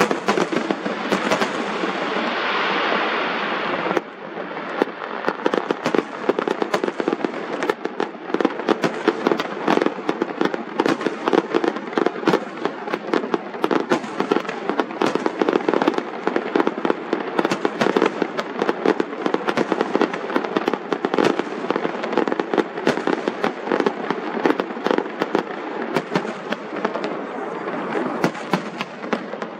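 Aerial fireworks display, with shells bursting in quick succession. A dense crackling wash for the first four seconds stops abruptly, then gives way to a steady run of rapid pops and crackles.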